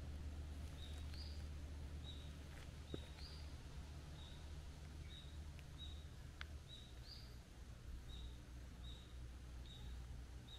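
A bird calling faintly in short high notes, repeated about once or twice a second, some with a quick upturn, over a low steady hum.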